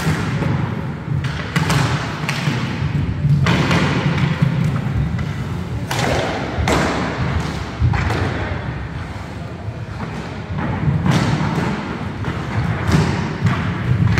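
Roller hockey play on a wooden sports-hall floor: skate wheels rumbling steadily across the boards, with irregular knocks and thuds of sticks, ball and skates.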